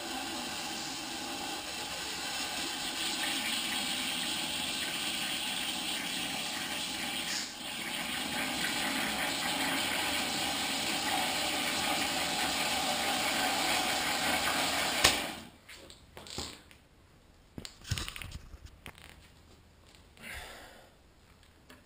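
Compressed air hissing from an air-hose nozzle through a Kawasaki KLR650 front fork leg, forcing the fork oil out into a jar below with a steady rush of air and liquid. It cuts off with a sharp click about 15 seconds in, followed by a few light handling knocks.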